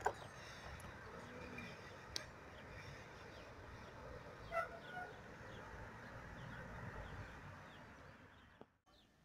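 Faint outdoor ambience: a steady low rumble with a couple of sharp clicks and a few short chirps about halfway through, dropping to near silence near the end.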